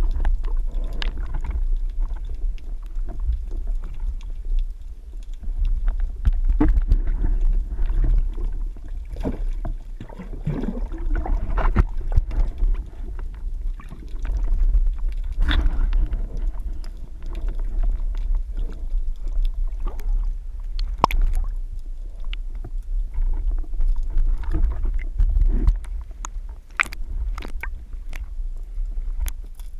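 A small boat on the water: a steady low rumble with scattered knocks and clicks.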